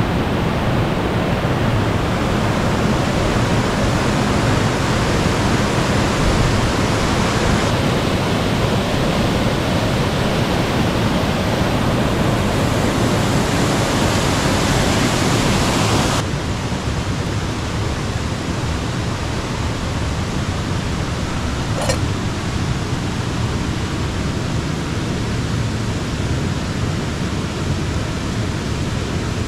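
A river rushing over rocks: a steady, even rush that gets a little quieter and less hissy about halfway through. A single short click a few seconds later.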